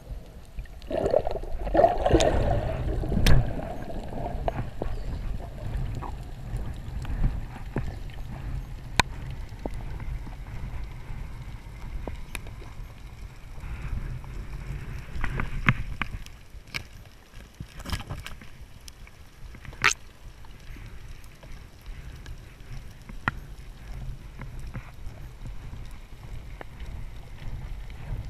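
Muffled underwater sound heard through a waterproof camera housing: a steady low rumble of water moving past the camera, a stretch of bubbling and gurgling about one to four seconds in, and scattered sharp clicks.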